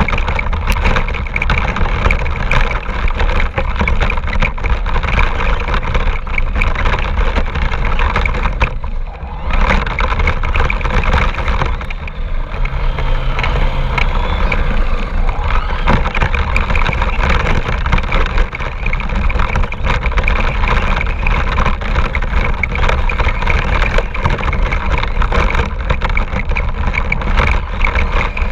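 A radio-controlled car running, heard close up from a camera mounted on it: steady loud motor and drive noise with constant rattling and knocking, dropping off briefly about nine seconds in.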